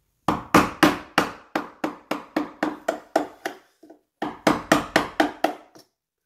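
A 1/4-inch wood chisel being struck in quick, even blows, cutting out the bolt mortise in a wooden door's edge: about a dozen strikes at three to four a second, a short pause, then about six more.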